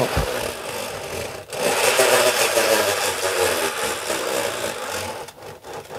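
An MDF circle turning on a lazy Susan bearing, giving a steady rolling rumble. The rumble grows louder about one and a half seconds in and fades near the end.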